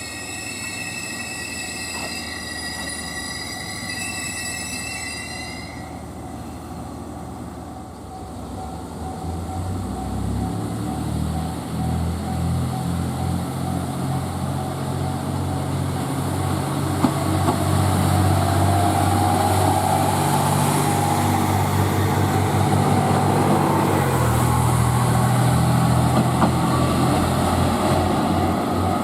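A train at a station: a high ringing sound made of several tones for about the first six seconds, then the train's low running hum builds and grows louder through the rest.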